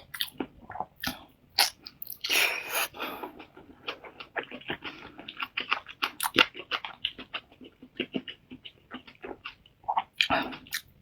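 Close-miked chewing: a steady run of short, crisp crunches and wet mouth clicks as food is bitten and chewed, with a longer crunching bite about two seconds in and another near the end.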